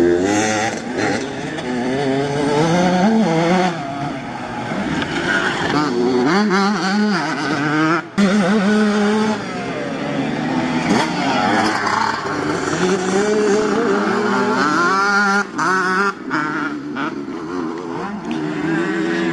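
Several motocross bike engines revving hard through a dirt corner, their pitch climbing and falling over and over as the riders open and close the throttle and shift. The throttle cuts off sharply about eight seconds in and again about fifteen and a half seconds in.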